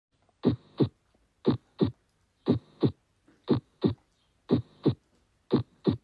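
Normal heart sounds: six lub-dub beats, about one a second, with silence between them. Each beat is S1, the closing of the atrioventricular valves, followed about a third of a second later by S2, the closing of the semilunar valves, with no murmur.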